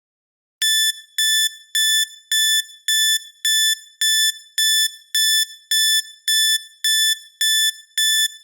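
A countdown timer's electronic alarm beeping: a high-pitched beep repeated evenly, a little under two a second, starting about half a second in.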